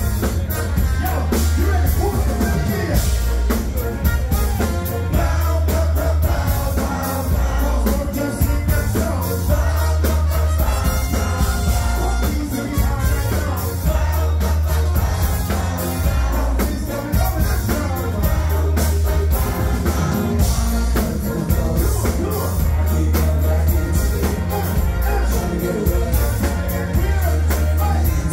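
Live band playing loud, bass-heavy music with drums and a singer's voice.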